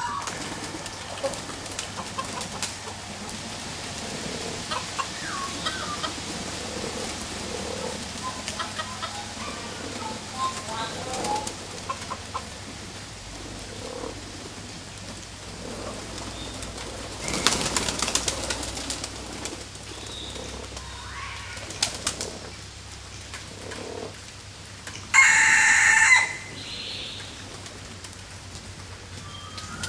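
A mixed flock of domestic doves and chickens: doves cooing and hens clucking in short scattered calls, with wings flapping. There is a burst of flapping a little past halfway and one loud, harsher bird call near the end.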